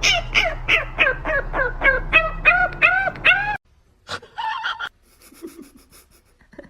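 An animal calling in a quick series of short, pitched cries, about four a second, each rising and then falling. The series breaks off suddenly and is followed by one longer cry.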